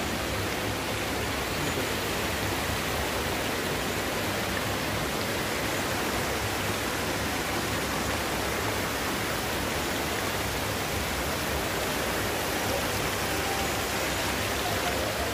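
Indoor fountain's falling and splashing water making a steady, even rushing noise.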